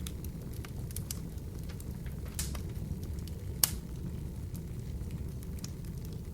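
Wood fire burning in an open fireplace: a steady low rumble of flames with scattered crackles and pops, the loudest pop about three and a half seconds in.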